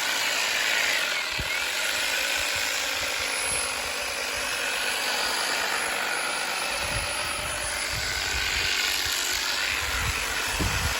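Ego battery-powered multi-tool hedge trimmer attachment running steadily while cutting a hedge, with a few low thumps in the last few seconds.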